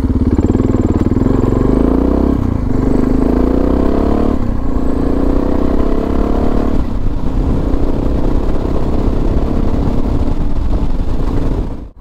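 Suzuki DR650's single-cylinder four-stroke engine accelerating through the gears: the pitch climbs three times, each climb cut by a short dip at a gear change, then it holds steady at a cruise for the last few seconds.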